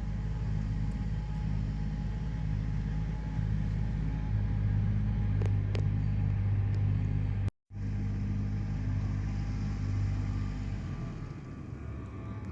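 A car engine idling steadily, a low even sound, broken by a sudden cut about seven and a half seconds in and easing off near the end.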